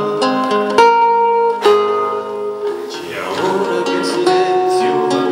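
Nylon-string classical guitar strummed and picked in a song accompaniment, with its chords ringing on. Two strong strums land about a second in and again a little before two seconds.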